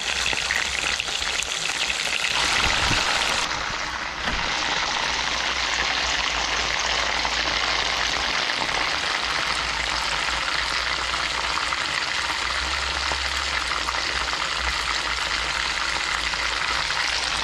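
Chicken pieces frying in hot oil: a steady, dense sizzle that swells briefly about two to three seconds in.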